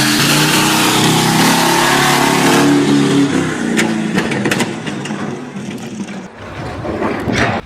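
A motor engine running hard, its pitch wavering, for about three seconds. It then turns rougher, with several sharp knocks about four seconds in and a louder crash near the end.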